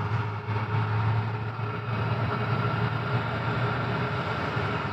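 Vehicle engine running steadily nearby: a low hum under an even wash of noise.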